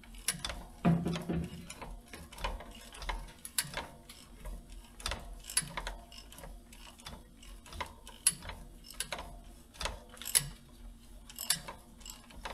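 Ratchet wrench clicking in short, irregular runs as the engine's crankshaft is turned by hand, bringing the first crank throw to the bottom for fitting the first piston.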